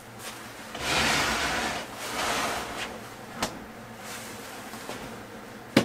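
Handling noise from a hard plastic DeWalt tool case being fetched and lifted: a second or so of scraping and rustling, a weaker stretch after it, and two short sharp knocks, one midway and one at the end.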